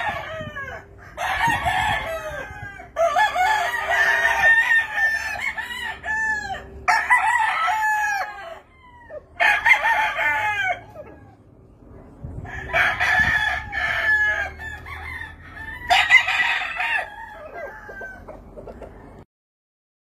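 Gamefowl roosters crowing repeatedly: about seven crows in a row, each one to two seconds long, some overlapping, with short quieter gaps between them. The sound stops abruptly near the end.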